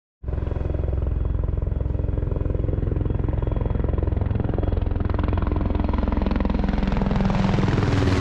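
Helicopter flying in, its rotor beating in rapid, steady pulses under a low engine drone, growing louder with a rising rush of noise near the end as it comes close.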